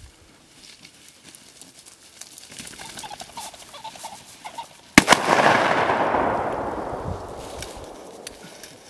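Rustling in the cover, then a single shotgun shot about five seconds in, its sharp crack followed by an echo that fades over about three seconds.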